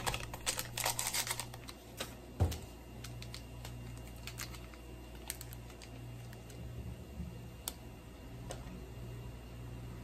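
Plastic seasoning sachets crinkling and being torn open by hand, with a dense patch of crackling in the first second and a half and scattered clicks later, and one sharp knock about two and a half seconds in. A steady low hum runs underneath.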